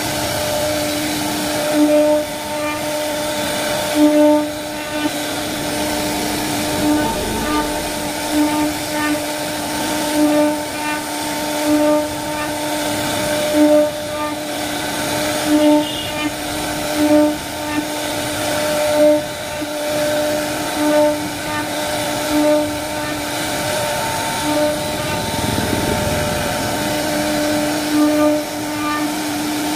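CNC wood-carving router's spindle running with a steady whine while cutting, swelling in loudness every second or two. About three-quarters of the way through the whine drops out briefly under a rush of noise, then returns.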